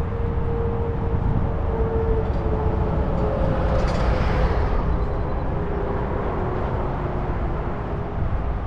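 Wind rushing over the microphone and tyre noise from a bicycle riding along a paved trail, with a faint steady hum that sinks slightly in pitch. A brief hiss swells and fades about halfway through.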